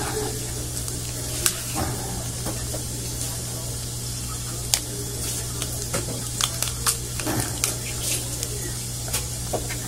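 Scattered small clicks and cracks of a lobster's shell and legs being pulled apart by hand on a plastic cutting board, thickest after about six seconds, over a steady low hum and hiss.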